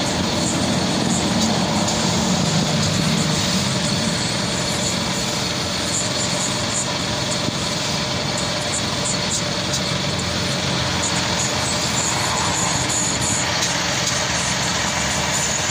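Small petrol engine of a portable air compressor running steadily at a constant speed.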